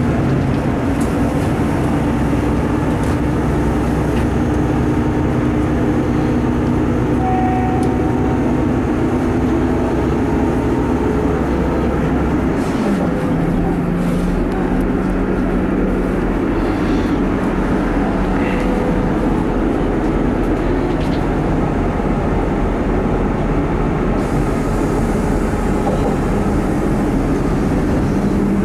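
Cabin noise inside a Class 159 diesel multiple unit on the move: its underfloor Cummins diesel engines drone steadily under the rumble of the wheels on the rails. About twelve seconds in the engine note glides down to a lower pitch and holds there as the train nears its station stop.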